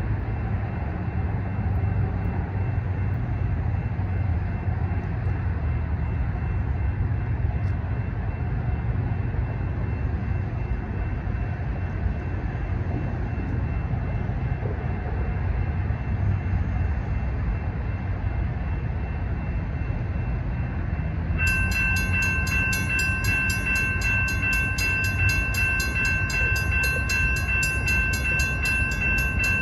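A steady low rumble, and then, a little over twenty seconds in, a railroad crossing's warning bell starts ringing steadily: the crossing has activated for an approaching train.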